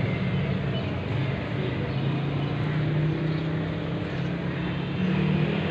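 Mother cat purring steadily, a low, rapidly pulsing rumble, while her kittens nurse.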